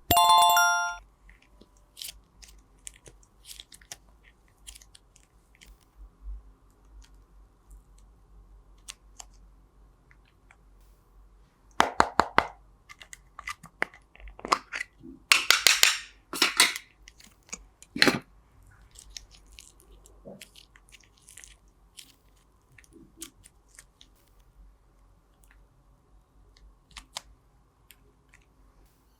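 Crunchy, crackling slime being handled and pressed, with scattered clicks and thicker clusters of crackling about twelve seconds in and again from about fifteen to eighteen seconds. A short chime-like ringing tone sounds at the very start.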